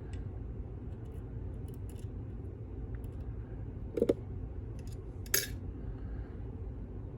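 Small steel lock-picking tools clinking and clicking as picks are handled and swapped at the lock, with two sharper clicks about four and five and a half seconds in, over a steady low hum.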